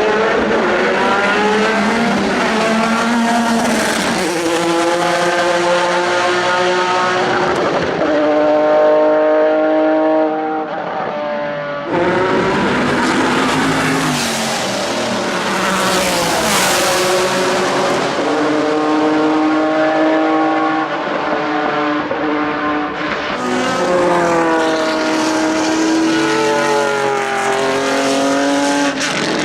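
Pilbeam MP91 LMP2 prototype's JPX/Mader V6 racing engine at hard throttle on track, its pitch climbing and dropping again and again through gear changes and lifts. The tone changes abruptly a few times.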